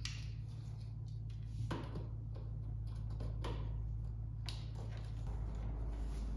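Scattered light clicks and taps of parts and hand tools being handled, over a steady low hum.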